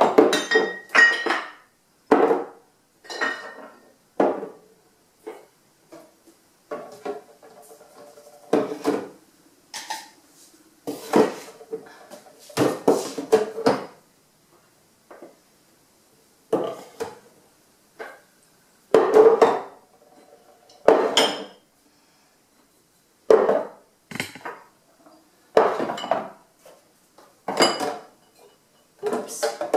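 Bottles being set down one after another on a cupboard floor, knocking and clinking against the base and each other every second or two.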